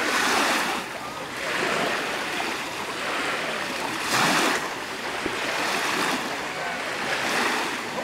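Small Dead Sea waves washing in shallow water: a hiss that swells and falls back about every three to four seconds.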